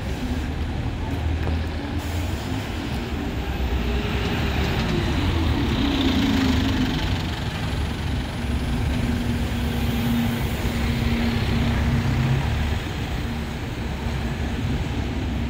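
Buses' engines running close by as a steady hum. About four seconds in, one engine note swells and falls in pitch, as a bus moves off or passes.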